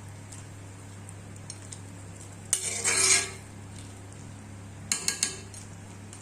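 A metal spoon scraping and stirring in a pot of chickpea curry for just under a second, then three quick metal clinks about five seconds in, over a steady low hum.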